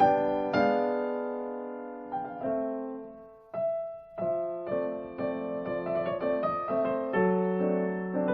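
Background piano music: slow struck chords that ring out and fade, then quicker notes building toward the end.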